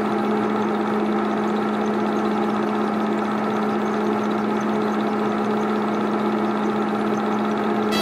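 An 8mm film projector running: a steady mechanical hum with a faint, fast, regular ticking from the film mechanism.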